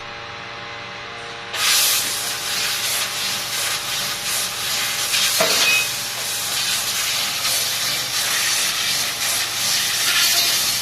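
CNC pipe laser cutting machine humming steadily, then the cutting head starts with a sudden loud, steady hiss of assist gas as it cuts a stainless steel square tube, with a brief sharp click about five seconds in.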